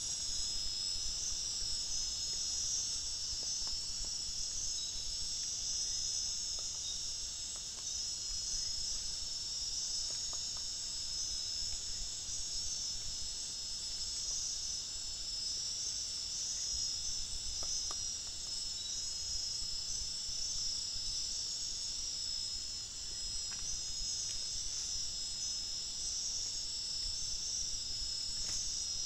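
Night chorus of crickets and other insects: a steady, high-pitched trilling with a fine pulsing pattern woven through it.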